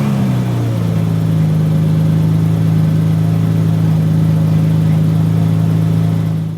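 BMW E30 engine running just after starting: it eases down from its start-up flare in the first second, then idles steadily and evenly without dying.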